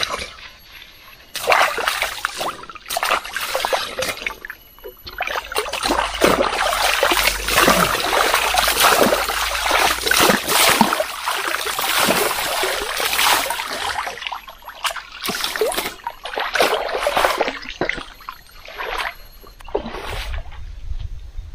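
Stream water scooped with a plastic dipper and poured over a person's head and body, splashing and pattering down into a shallow stream in repeated pours with short pauses between them.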